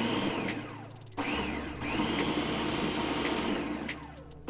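Food processor pulsing whole peeled tomatoes: a short pulse of about a second, then a longer one of about three seconds. In each the motor whine rises as it spins up and falls as it stops, over the sound of the blade chopping the tomatoes.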